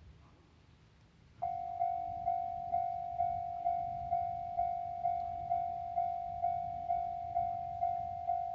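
Japanese railroad crossing warning bell starting about a second and a half in, ringing one repeated ding a little over twice a second, each strike fading before the next. It signals an approaching train as the crossing barriers come down. Before it there is only a faint low background rumble.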